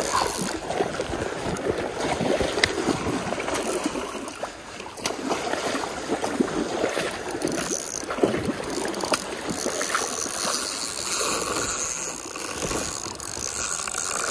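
Shallow stream water rushing, mixed with wind buffeting and handling noise on the microphone. Over the second half, a jacket sleeve rubs across the microphone with a patchy hiss.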